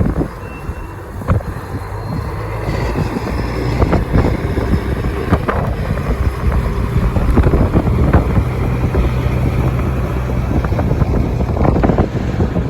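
Strong blizzard wind gusting and buffeting the microphone, under a steady low vehicle rumble.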